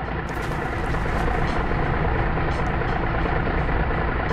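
Heavy vehicle engine running steadily with a deep, even rumble, as a sound effect in an animated film's soundtrack.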